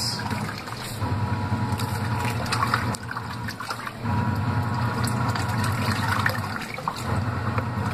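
Compact automatic washing machine in its first rinse, its motor working the load through the water with a low hum and sloshing. It runs in stretches of two to three seconds with short breaks, about three seconds in and again near the end.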